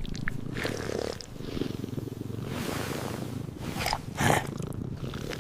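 A cat purring, a steady low rattle, with a short louder burst about four seconds in.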